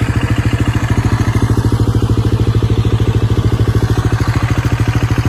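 Dirt bike engine idling at a steady, even, rapid beat.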